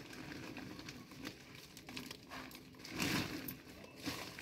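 Plastic bag and plastic sheet crinkling as dry fertiliser is handled, faint, with one louder rustle about three seconds in.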